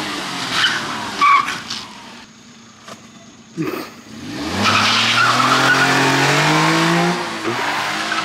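Japanese kei mini truck's small engine easing off, then revving up with steadily rising pitch as it accelerates in the second half, the loudest part, with a rushing noise over it.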